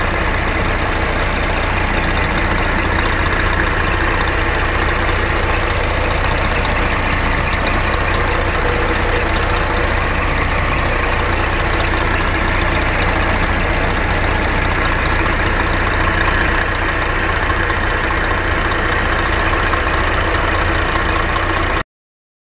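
Scania 124G 470 tank lorry's inline six-cylinder diesel idling steadily, heard close up in the open engine bay. It stops abruptly near the end.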